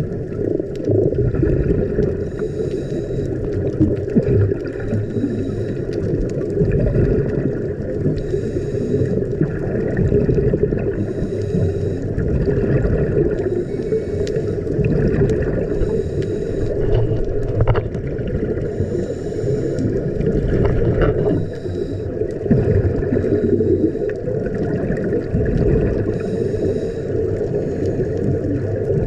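Scuba diving underwater: bursts of exhaled bubbles hiss from a regulator about every two and a half seconds, over a steady low rumble.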